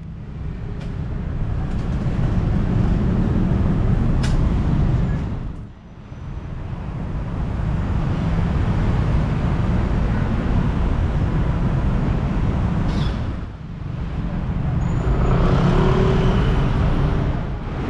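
Busy city street traffic: motorbikes and cars passing with a steady low engine rumble, fading briefly twice.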